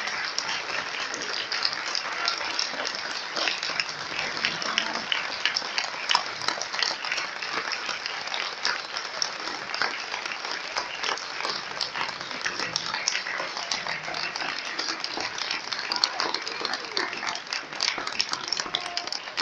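Audience applauding: a dense, steady patter of hand claps, with some voices mixed in.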